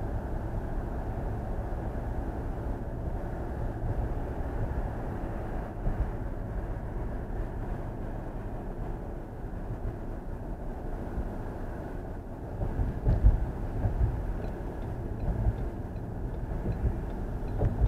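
Steady road and tyre rumble of a car driving at highway speed, heard from inside the cabin. There are a few heavier low thumps about two-thirds of the way through, and a faint regular ticking in the last few seconds.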